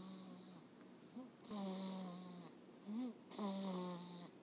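Rhythmic snoring of a sleeper dead to the world: long, pitched snores about every two seconds, each with a breathy hiss and each preceded by a short rising squeak.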